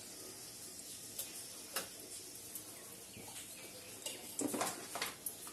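Dried red chilli and a bay leaf sizzling in hot oil in an aluminium kadai as the spices are tempered, a steady hiss with scattered sharp crackles and a few light knocks near the end.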